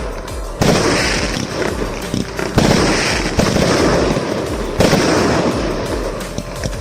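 Multi-shot consumer fireworks cake, a 190-shot battery of mixed 0.8 to 1.2 inch calibres, firing salvos. Continuous crackling and bursts are punctuated by three sharp surges: about half a second in, at two and a half seconds, and near five seconds. The firing eases toward the end.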